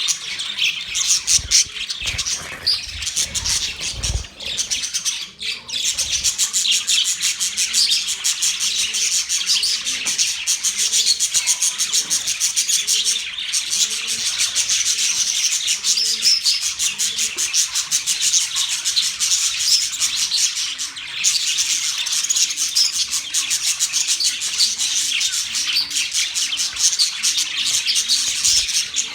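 Budgerigars chirping and chattering without pause, many quick overlapping calls at once, with a few low thumps in the first few seconds.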